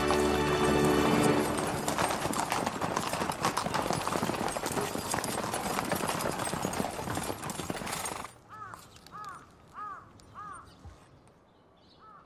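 Horses' hooves clattering at a trot on paving, many horses together in a dense, loud clatter. About eight seconds in it drops away, leaving a quieter run of short rising-and-falling pitched sounds.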